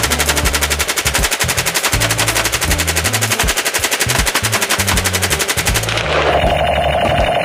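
Sustained fully automatic fire from an AK-47-pattern rifle with a drum magazine: a rapid, even string of shots lasting about six seconds. Near the end the shooting stops and a steady buzzing tone takes over.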